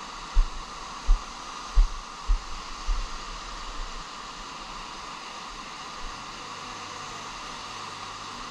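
Surf washing up on a sandy beach, heard as a steady rushing noise. In the first three seconds there are several low thumps of wind buffeting the microphone, which then stop.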